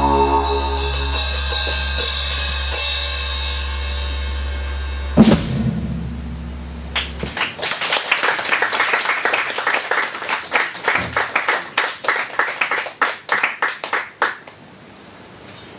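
Live rock band playing: a held chord over a steady low bass note, a loud drum hit about five seconds in, then the drummer plays fast, dense cymbal and drum strokes for about seven seconds before stopping abruptly near the end.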